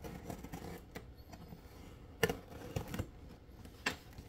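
A cardboard shipping box being opened and handled: scattered clicks, taps and rustles of the flaps and packing, with the sharpest knocks about halfway through and again near the end.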